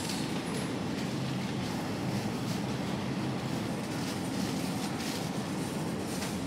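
Steady supermarket background noise: an even low hum and hiss from the store's refrigerated cases and air handling, with faint rustling of handling close by.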